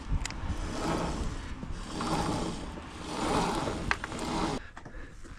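Scraping and rubbing handling noise from hand work on a go-kart, in uneven swells, with a few sharp clicks.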